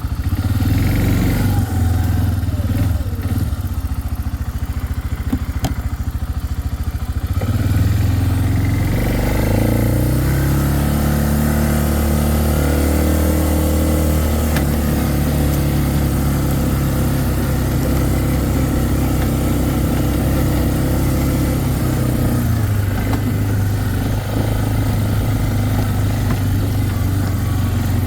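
Four-wheeler (ATV) engine running as it is ridden: it revs up about a third of the way in, holds a steady pace, then eases off about three quarters of the way through.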